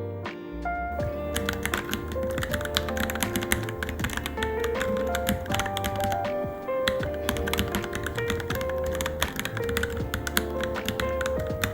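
Fast, continuous typing on a Varmilo Minilo mechanical keyboard: a quick run of key clicks that starts about a second in, over background music with a melody.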